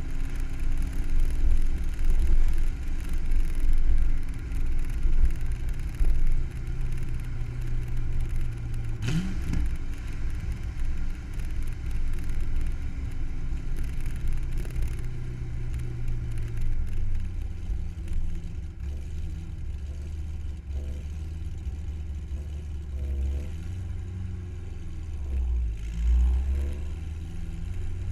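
A vehicle engine running, its low pitch shifting up and down at times.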